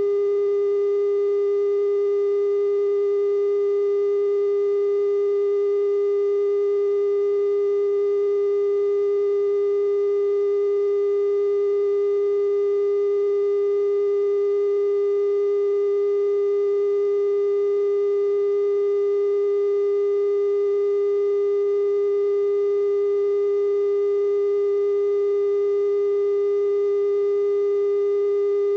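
Broadcast test tone at 420 Hz, sent with color bars to mark that the TV station is off the air: one steady, unbroken pitch with faint higher overtones.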